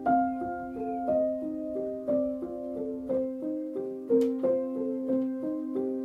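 Background piano music: a quick figure of notes repeating about once a second over a held low note.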